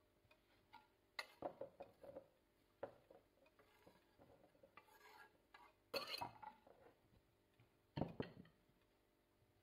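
Scattered light knocks and clinks of kitchen handling: a knife tapping and scraping on a wooden cutting board as sliced onion goes into a ceramic bowl, and ceramic dishes set down on the counter. The loudest knocks come about six and eight seconds in.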